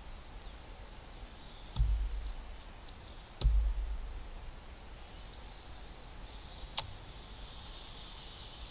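Two dull low thuds about a second and a half apart, then a single sharp click as a bushcraft knife blade is pushed into a rotten log. Faint birdsong throughout.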